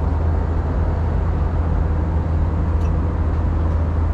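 Steady cabin drone of an Airbus A320 airliner in flight, engine and airflow noise with a strong deep hum underneath.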